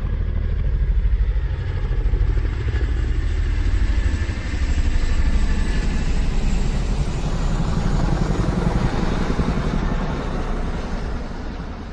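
A motor vehicle engine running with a fast, low, steady throb, swelling and easing in loudness a few times and starting to fade near the end.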